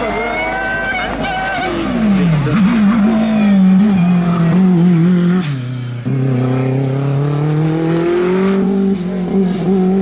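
Lancia Delta S4 rally car's twin-charged four-cylinder engine driven hard up a hill-climb course. The revs fall steeply about two seconds in as it drops gears into a bend, then hold. They dip sharply again near six seconds and climb steadily as the car accelerates away.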